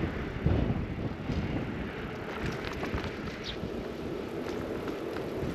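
Wind on the microphone and tyre rumble from a bicycle rolling along a paved lane, a steady rushing noise with a low thump about half a second in and a few light clicks and rattles.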